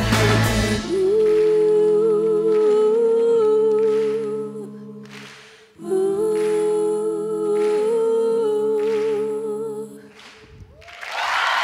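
A young woman's voice humming a cappella as the band drops out: two long held notes that waver and fade away. Applause breaks out just before the end.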